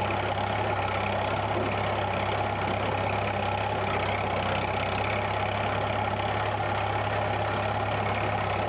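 Massey Ferguson tractor's diesel engine running steadily as the tractor drives.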